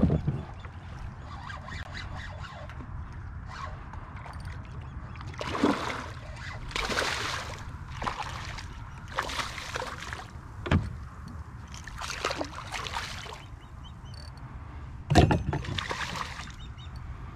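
Water splashing and sloshing at a kayak in several separate bursts, each about a second long, over a steady low rumble. Sharp knocks against the boat come near the start, about eleven seconds in and, loudest of all, about fifteen seconds in.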